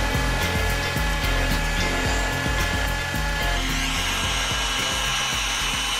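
Background music with a steady beat and a moving bassline.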